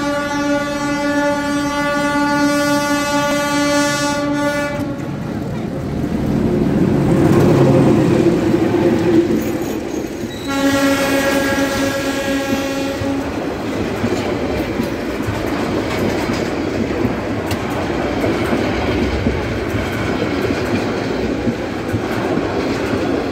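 Diesel locomotive of a local passenger train sounding a long horn blast as it approaches, its engine noise swelling as it runs close past, then a second, shorter horn blast. After that comes the steady rumble and clatter of the coaches' wheels rolling by on the rails.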